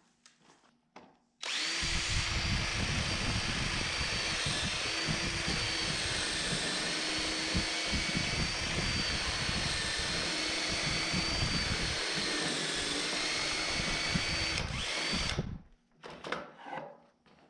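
Cordless drill in a drill guide boring into the end of a wooden door-frame board. It starts about a second and a half in, runs steadily under load for about fourteen seconds with its pitch dipping slightly now and then, and stops suddenly, followed by a few light knocks.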